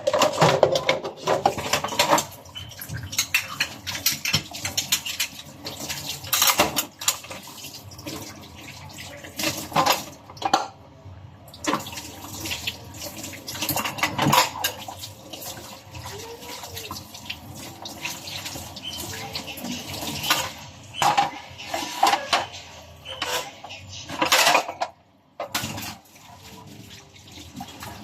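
Dishes and cutlery clattering with water running, as in washing up at a sink: irregular clinks and knocks over a steady wash of water.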